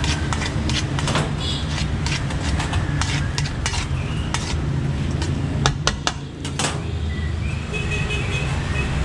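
Metal tongs clinking and scraping against a stainless steel mixing bowl as a dressed salad is tossed: irregular sharp clicks, loudest in a cluster about six seconds in, over a steady low hum.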